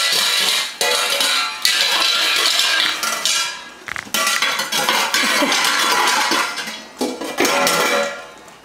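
Two metal pot lids clashed together like cymbals several times, each crash ringing on for a second or more.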